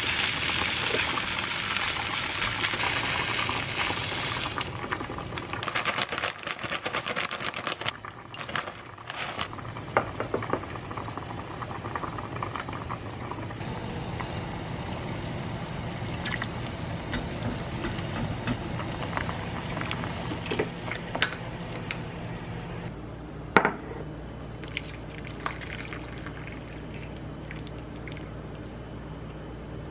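Kimchi fried rice sizzling in a wok as a spatula stirs and scrapes it, the sizzle fading after a few seconds. Then beef seaweed soup in a ceramic pot, with scattered clinks of utensils, one sharp clink a little past the middle, and soup poured into a bowl near the end.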